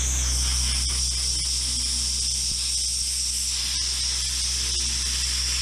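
Sandblaster nozzle blasting abrasive against the rusty steel chassis and leaf spring of a Toyota Hilux: a steady, loud high hiss of air and grit, with a low rumble underneath.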